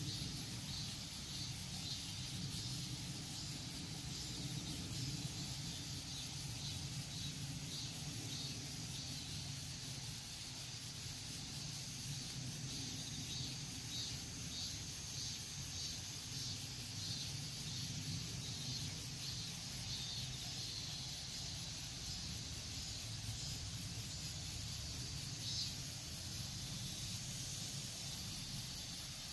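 Insects chirping steadily: a fast, high-pitched pulsing trill with scattered shorter chirps, over a low steady rumble.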